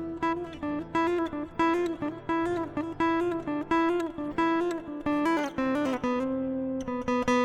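Takamine P3NC acoustic guitar played with single plucked notes, about two a second, forming a slow melody over a held note, moving to lower notes near the end.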